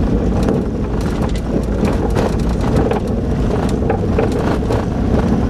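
Truck driving on a dirt and gravel road, heard from inside the cab: a steady engine and road rumble with frequent clicks and rattles.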